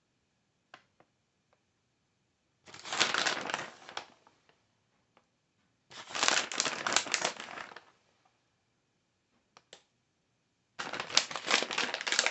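Plastic bag of shredded cheddar cheese crinkling as it is handled, in three bursts a few seconds apart.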